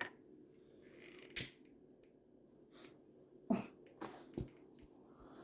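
A few separate sharp clicks and light knocks from small objects being handled, one preceded by a brief scrape, over a faint steady room hum.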